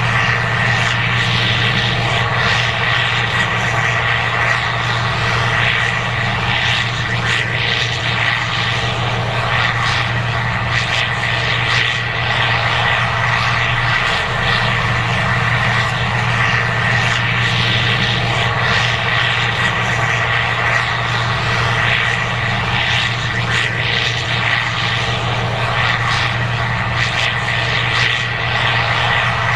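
Case IH 2188 Axial-Flow combine running steadily while harvesting corn: a constant engine and machinery drone with a thin high whine held throughout.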